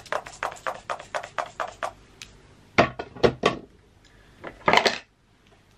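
Pump-action facial mist bottle sprayed about nine times in quick succession, short hissing puffs, followed by three sharp knocks and one louder hiss near the end.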